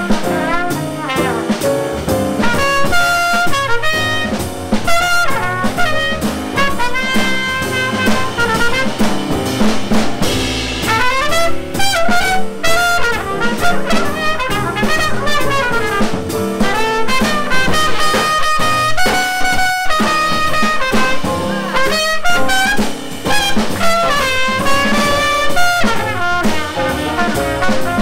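Trumpet solo in a live jazz quintet, a melodic line of moving notes over piano, double bass and drum kit.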